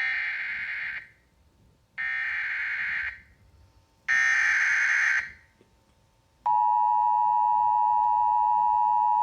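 Emergency Alert System header: three harsh digital SAME data bursts about a second long, each a second apart, then the EAS attention signal starts about six and a half seconds in, a loud steady electronic tone near 1 kHz.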